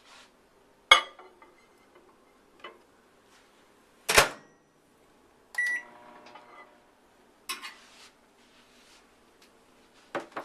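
Microwave oven in use: the door and dish make sharp clunks, the loudest about four seconds in. About halfway through the oven beeps and runs with a short steady hum, then more clunks follow.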